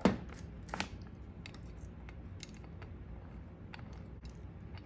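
Small metal carburetor parts being handled and fitted by hand: a few scattered sharp clicks and light taps, the loudest right at the start.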